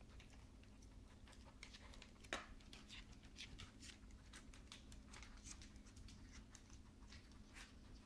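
A dachshund's claws clicking on a hardwood floor as it walks, an irregular scatter of light ticks with one louder knock a couple of seconds in. A faint steady hum runs underneath.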